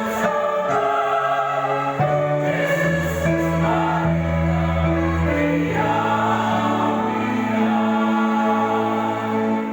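Church choir singing in harmony, holding long chords that shift to new ones every few seconds.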